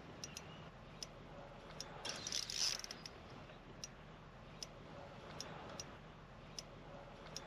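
Sparse, irregular sharp ticks from a spinning reel as a hooked tailor is fought on a bent rod, with one short rushing sound about two seconds in.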